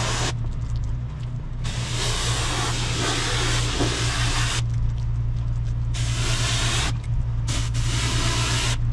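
Pressure-washing machine's engine running steadily while a high-pressure water spray hisses on and off in several bursts of one to three seconds, as the spray gun is triggered and released.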